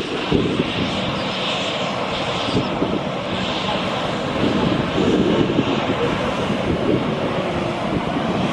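Turbofan engines of a Mandarin Airlines Embraer E190 jet running as the airliner rolls along the runway: a steady rushing hiss that grows a little louder about halfway through.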